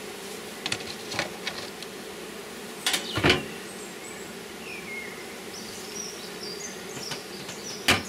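Steady hum of many honeybees around an opened wooden hive, the bees crowding the hive front. A few wooden knocks in the first three seconds or so as the hive is closed with its cover and lid.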